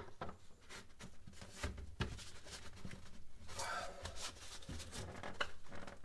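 Quiet, scattered clicks and knocks of plastic as the temperature control knob is pushed back onto the refrigerator's plastic thermostat housing and handled, the sharpest click right at the start.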